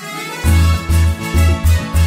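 Background music starting up: held instrumental chords, with a heavy bass beat coming in about half a second in and pulsing two or three times a second.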